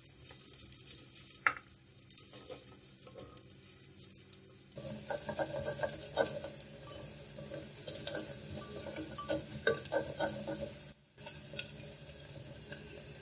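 Chopped onion sizzling in hot ghee in a clay handi, being fried until lightly pink, while a wooden spoon stirs it with scattered clicks and scrapes against the pot. The sizzle grows fuller about five seconds in, with a brief break near eleven seconds.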